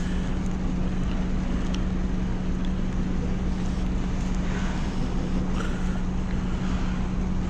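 Engine of the small passenger ferry Fukumaru running steadily, a constant low hum and rumble. Wind noise rushes over the microphone on the open upper deck.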